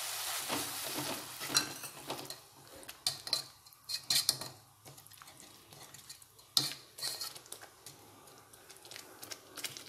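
Wire-mesh skimmer stirring gravy in a metal kadhai, scraping and clinking irregularly against the pan, over a soft sizzle that fades in the first couple of seconds.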